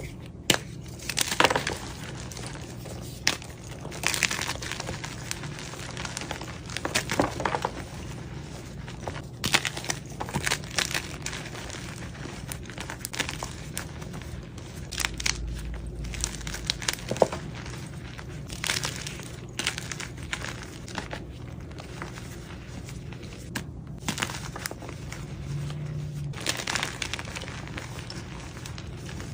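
Blocks of gym chalk being crushed and crumbled, giving irregular crunches and crackles with softer crumbling between them.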